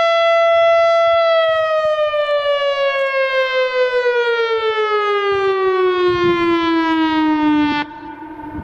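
Outdoor warning siren run by an American Signal Corporation (ASC) controller, holding a steady tone and then winding down about a second in, its pitch falling smoothly over several seconds. Near the end the level drops sharply, leaving a fainter low tone.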